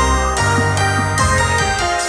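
Background music: an instrumental track with a steady beat, bass notes and bright keyboard-like tones.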